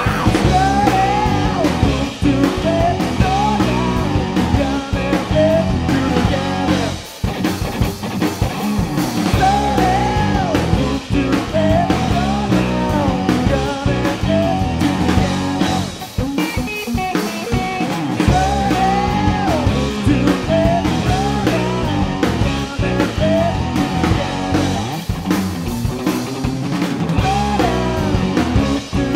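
Blues-rock power trio playing: electric guitar, bass and drum kit, with a lead melody that bends up and down in pitch over the band.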